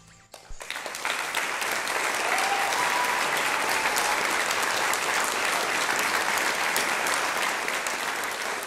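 Audience applause breaking out about half a second in, then steady clapping.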